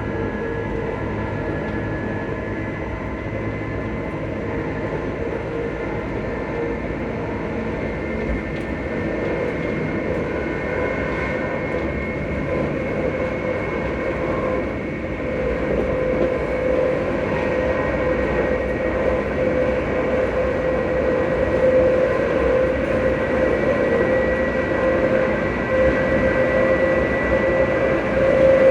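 Electric multiple unit's traction motors humming with a steady whine under the rumble of the train running on the rails, heard from on board. The whine and rumble grow a little louder about halfway through.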